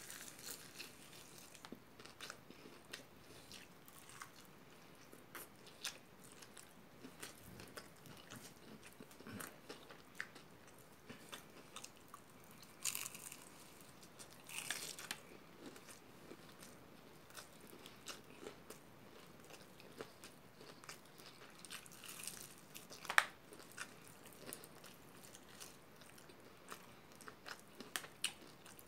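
A person biting into and chewing a sauce-coated fried chicken drumstick: soft, irregular crunches of the breading with wet mouth sounds, and one sharper crunch about two-thirds of the way through.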